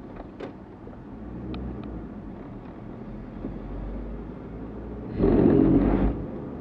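Car interior road noise while driving. Near the end the tyres rumble loudly for about a second as they cross a ridged surface, such as bumps or a grate.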